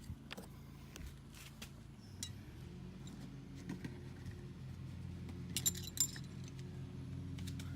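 Light metallic clinks and rattles of small screws and a screwdriver being handled, with a cluster of sharper clinks about two-thirds of the way through, over a steady low hum.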